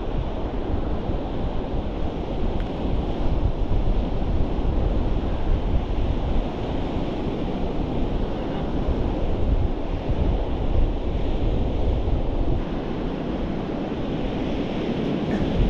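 Wind buffeting the microphone over a steady wash of sea surf on a stormy shore, a constant low rumbling noise with no break.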